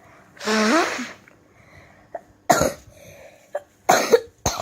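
A child with a cold coughing: one longer, voiced cough about half a second in, then three short, sharp coughs in the second half.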